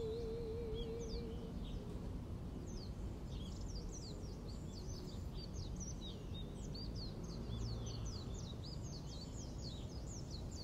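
A soprano's last held sung note, with a wavering vibrato, fades out about a second and a half in. Then many birds chirp in short, quick downward chirps that grow busier toward the end, over a steady low rumble.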